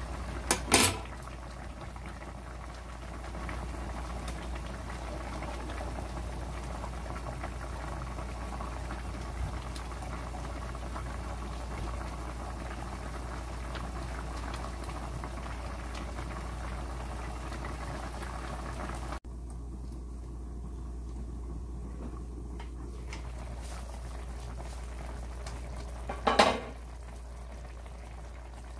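Pot of spicy Korean-style chicken stew boiling on the stove, a steady bubbling, with a short knock about a second in and another near the end.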